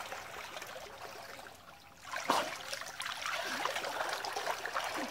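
Shallow creek water trickling and sloshing around people wading and working in it. A sharp hit comes about two seconds in, and after it the water noise is louder.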